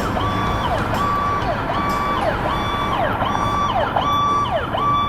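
Toy fire truck's electronic siren: a high note held briefly, then a quick dip down and back up, repeating a little more than once a second.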